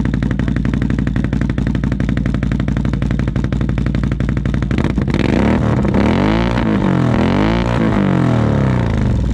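Can-Am ATV engine breathing through an SLG Welding aftermarket exhaust, idling steadily, then revved hard from about five seconds in, its pitch climbing and falling twice before settling back to idle near the end.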